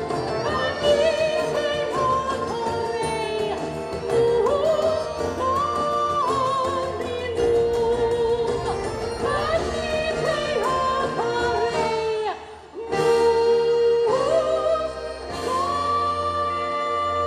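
Christmas show music: singers holding long notes over instrumental backing, with a short break about twelve seconds in.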